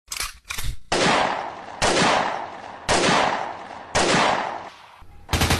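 Gunshot-like bangs: four loud single shots about a second apart, each with a fading echo, then a rapid burst of machine-gun-like fire near the end.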